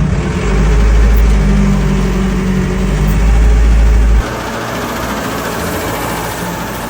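An engine running with a loud, low, steady rumble that drops off sharply about four seconds in, leaving a quieter, rougher noise.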